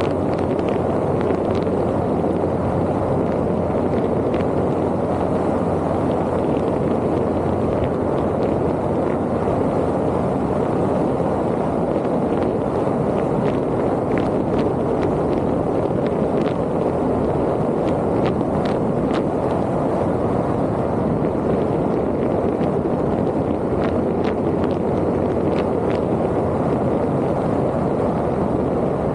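A vehicle driving along: steady, unchanging road and wind noise.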